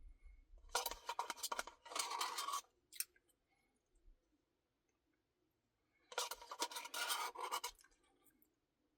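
Two bursts of rapid, scratchy scraping, each under two seconds long, about four seconds apart.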